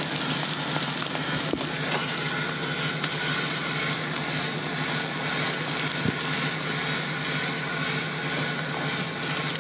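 A vehicle engine idling with a steady drone and a faint high whine. There is a faint knock about six seconds in.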